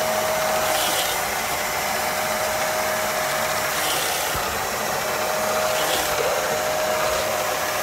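Hot-water carpet extractor running with a steady motor whine, its handheld upholstery tool sucking spray and water out of a cloth car seat during wet extraction, with a few brief surges of hiss as the tool moves.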